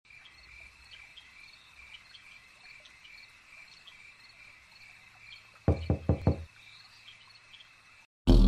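Night ambience of crickets chirping steadily and faintly. About six seconds in, four loud, quick pitched hits in a row break over it.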